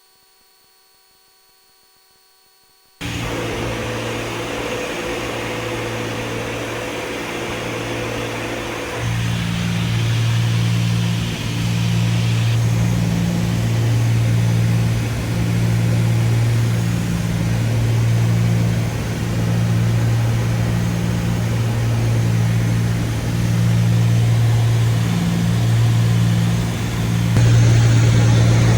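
Steady cabin drone of the Cessna 310Q's twin piston engines and propellers, low and strong. It cuts in suddenly a few seconds in, grows louder with a slow throb about every second and a half, and steps up again near the end.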